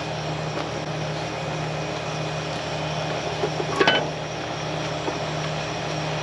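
A large mobile crane's engine runs steadily at idle. Just before four seconds in there is a single sharp metallic clink from the rigging hardware.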